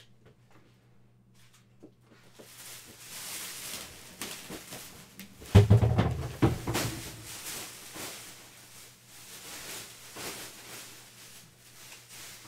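Packaging being handled and torn open: crinkling and rustling that starts about two seconds in, with a loud thump about five and a half seconds in.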